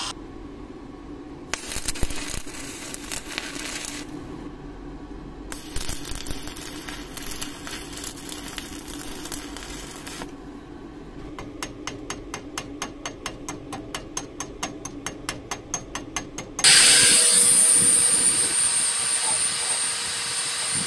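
Workshop sounds in quick succession: two stretches of crackling hiss, then a run of sharp clicks, about five a second. About two-thirds of the way through, an angle grinder with a flap disc comes in loud and grinds the steel axe head with a steady high whine.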